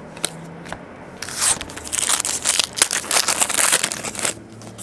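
A trading-card pack's shiny foil wrapper being torn open and crinkled by hand: a dense crackling that starts about a second in and lasts about three seconds, after a few light clicks of cards being handled.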